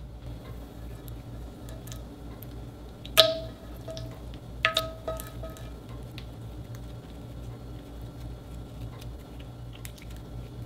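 Clear glue slime being stretched and folded by hand, with small sticky clicks and pops. A sharp, loud click comes about three seconds in and a few more follow a second and a half later.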